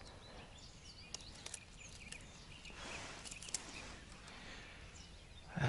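Quiet outdoor ambience with faint, scattered bird chirps and a few light clicks.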